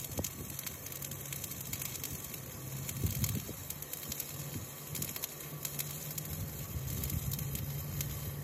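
Electric arc welding on an excavator's steel undercarriage: a steady crackling sizzle from the arc, with a steady low hum underneath.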